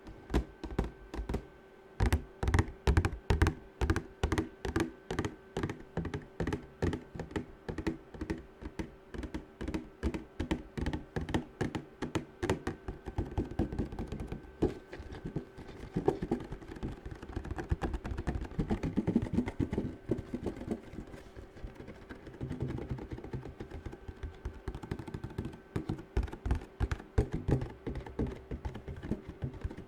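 Fingernails tapping fast on a hard object, ASMR-style: crisp even taps at about three a second, turning into a denser, softer, irregular flurry of tapping about halfway through.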